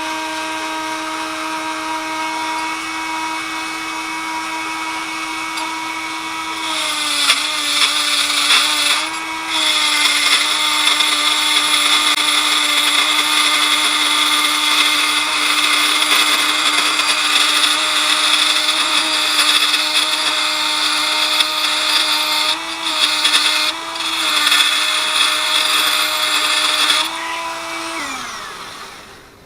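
Small electric power tool running with a steady whine, then cutting into the steel pin's hole from about seven seconds in: a loud grinding hiss joins and the motor pitch drops slightly under load, easing off briefly a few times. Near the end the cutting stops and the motor winds down.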